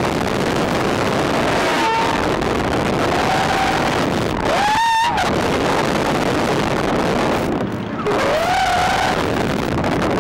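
Heavy wind rushing over the microphone of a reverse-bungee ride capsule in flight, with the riders yelling and screaming over it several times; the loudest is a long rising-then-falling scream about five seconds in.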